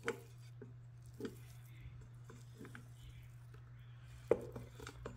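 Wooden spatula stirring cooked quinoa and peanuts in a stainless steel Instant Pot inner pot: soft scrapes and light knocks against the pot, with a sharper knock about four seconds in, over a steady low hum.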